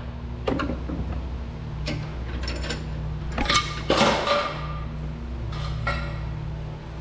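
Metal clinks and knocks from hand tools and a tail light housing being handled at a vise, with a louder clatter of something dropped about four seconds in.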